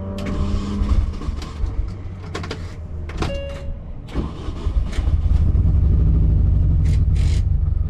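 Car engine running roughly, with a few sharp clicks, then getting louder about five seconds in. The engine is misfiring, which those present take for running on about three cylinders and put down to worn or cracked spark plugs.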